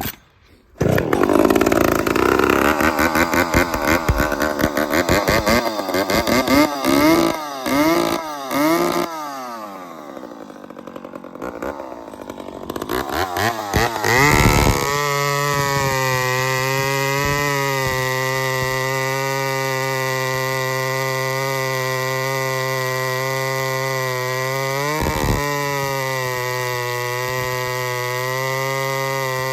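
ProMac 60 two-stroke chainsaw revving up and down repeatedly, easing off, then held at a steady high speed for the second half, with one brief dip in pitch about 25 seconds in.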